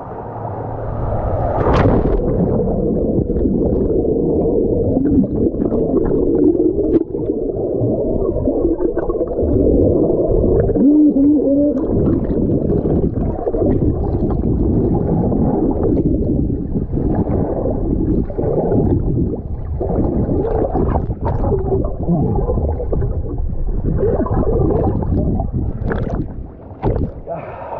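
Rider going down a water slide: water rushing and gurgling along the slide, a dense low rumble with a few sharp knocks and splashes.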